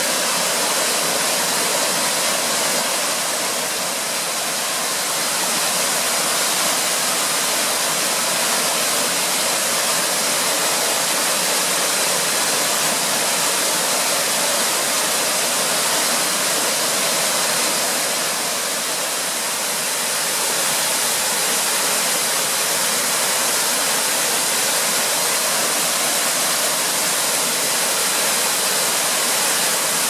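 Steady rushing of a 30 m mountain waterfall, with water pouring over rock and splashing into its pool.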